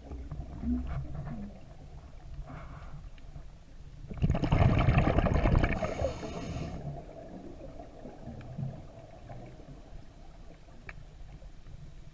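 Underwater recording from a scuba night dive: a low steady rumble with scattered faint clicks. About four seconds in, a loud gurgling rush of bubbles lasts about two and a half seconds, typical of a diver exhaling through the regulator.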